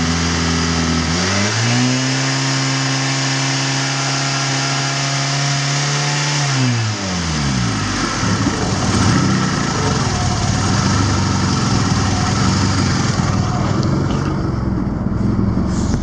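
Mitsubishi 4G64 2.4-litre 16-valve four-cylinder engine revved up in two steps, held at high revs for about five seconds, then dropping back about seven seconds in and running on at idle.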